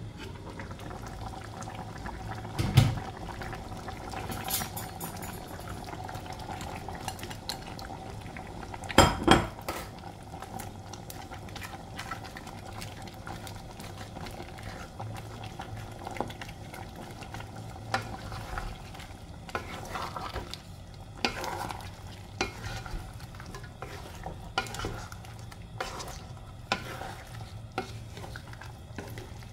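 Wooden spatula stirring and scraping through a nonstick pan of shrimp, squash and long beans simmering in coconut milk. There are small clicks throughout, with two louder clatters, about 3 and 9 seconds in.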